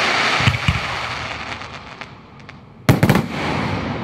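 Fireworks: a loud hiss of burning stars fading over the first two seconds, with a couple of low thumps, then a quick volley of sharp bangs about three seconds in.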